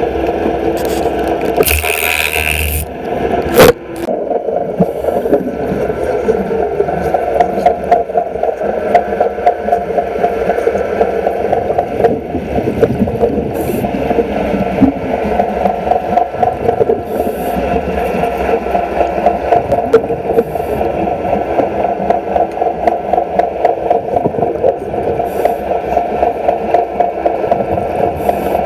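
Underwater wet stick-welding arc on a steel pile, a steady crackling buzz with streams of gas bubbles, as a diver welds a sacrificial anode in place. One sharp crack about three and a half seconds in.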